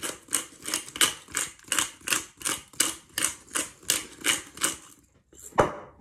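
Hand-held pepper mill grinding black peppercorns: a dry crunching rasp about three times a second that stops about five seconds in. A single sharp knock follows near the end.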